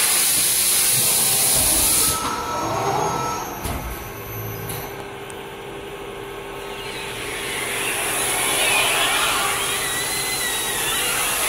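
Starch tableware forming press hissing loudly, cutting off abruptly about two seconds in, with a few low knocks. A steady hum carries on, and the hiss builds up again from about seven seconds.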